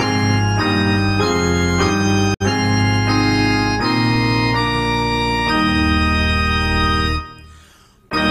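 Church organ playing a hymn in sustained chords that change about twice a second, with a split-second dropout a little over two seconds in. About five and a half seconds in it holds a long chord that dies away to a brief pause, and the music starts again just before the end.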